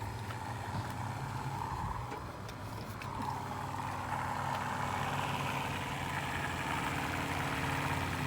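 Battery-powered electric pump running steadily with a low hum as it pushes water through the rig's lines. A higher whine comes in about three seconds in and the sound grows slightly louder.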